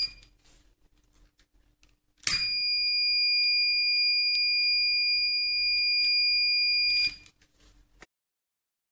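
Buzzer of a home-made IR-photodiode fire detector circuit sounding one steady high-pitched tone: the detector's alarm, triggered. The tone cuts off right at the start, comes back about two seconds in, holds for nearly five seconds and then stops.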